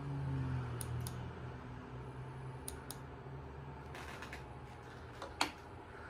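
Hampton Bay Hawkspur ceiling fan running: a steady low motor hum with the rush of air from the spinning blades. A few light clicks sound, and a sharper click about five seconds in.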